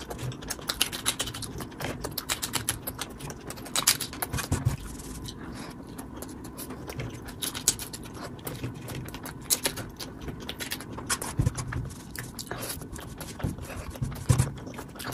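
Sped-up eating sounds: a hand scraping and gathering cooked instant noodles across a wooden plate, with quick irregular clicks and smacks of chewing.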